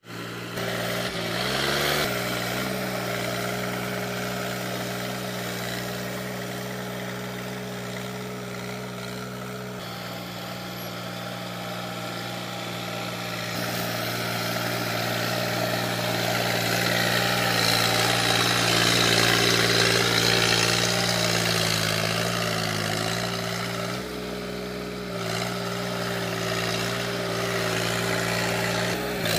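Sonalika DI-42 RX 4x4 tractor's diesel engine running steadily as it works through deep paddy-field mud, its pitch rising about two seconds in. A rushing noise swells and fades through the middle.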